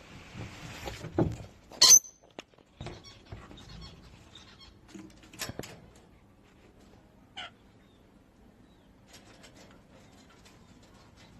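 Pet parrot making a few short, sharp calls and clicks, the loudest about two seconds in, then sparse quieter clicks.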